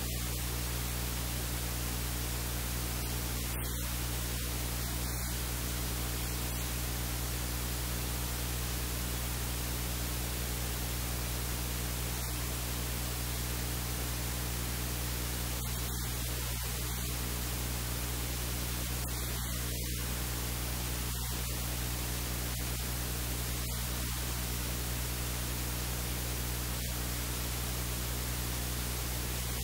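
Steady static hiss with a low electrical hum. The hum is a stack of tones on about 50 Hz that does not change, the kind of mains hum a recording picks up. No cooking sounds stand out above the noise.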